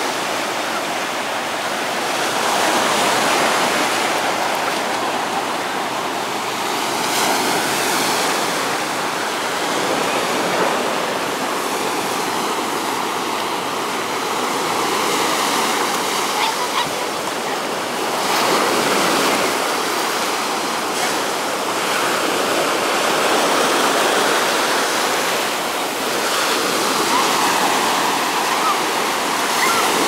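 Sea waves breaking in foam and washing up the beach: a steady surf that swells louder every few seconds as each wave breaks.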